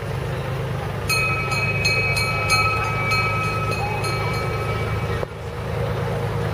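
Low, steady engine rumble of a trackless tourist road train passing close by. From about a second in, a bell rings repeatedly, about three strikes a second, for roughly four seconds, then stops suddenly.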